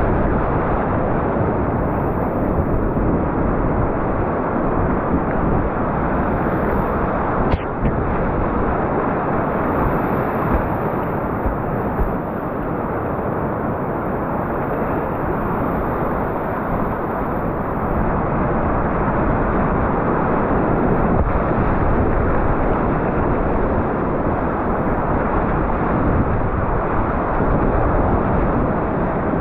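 Whitewater rapids rushing, a steady loud noise of churning river water, with a brief click about seven and a half seconds in.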